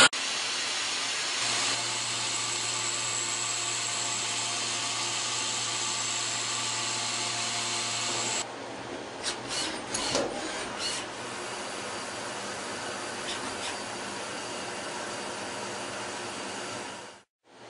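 Automatic CNC lathes turning metal. First comes a steady cutting and coolant hiss with a low hum. After about eight seconds it gives way to quieter machine running with scattered clicks, which cuts out for a moment near the end.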